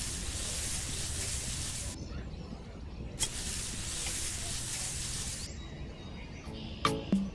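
Small metal tool scraping a groove through sand: two strokes of scraping hiss, each about two seconds long, with a short pause between. Music starts near the end.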